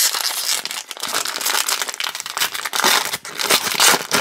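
Foil wrapper of a 2019 Topps Series 2 jumbo baseball-card pack crinkling in the hands as it is handled and opened: a dense, continuous run of crackles.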